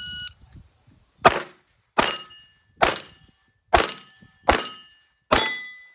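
Shot-timer start beep, then six .22 rimfire pistol shots about three-quarters of a second apart, each followed by the ring of a steel target plate being hit.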